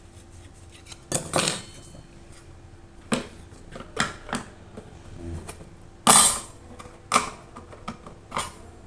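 Parts of a drip coffee maker being handled and fitted back together: a series of separate knocks and clatters, the loudest about six seconds in, over a faint steady hum.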